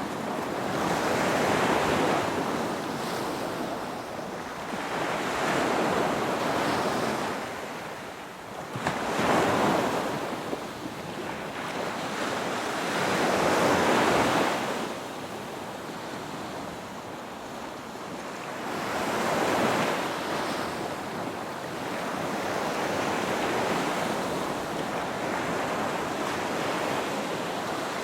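Ocean waves breaking and washing on the shore in slow surges, one every few seconds, with wind noise on the microphone.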